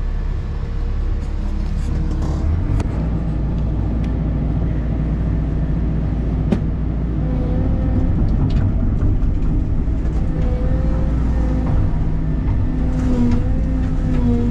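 Cat excavator's diesel engine running under working load with its hydraulics, heard from inside the closed cab. It grows a little louder with a steady whining tone joining about seven seconds in, and a few sharp clicks and knocks sound through it.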